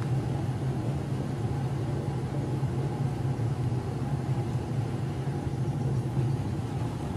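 Hair dryers running steadily, a constant motor hum with a rush of blown air, heating the plastic bumper to soften it so the dent can be pushed out.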